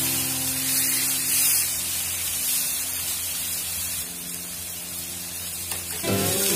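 Chicken sizzling on a hot IronChef cast-iron reversible griddle: a steady frying hiss under soft background guitar music, which swells back up loudly near the end.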